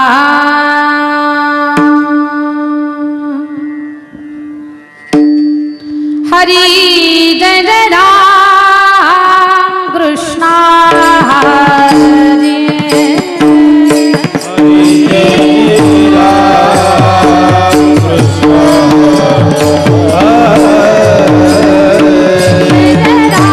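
Woman singing the opening of a Marathi devotional kirtan (panchapadi) in long ornamented phrases over a steady drone. Drum beats join about two-thirds of the way in.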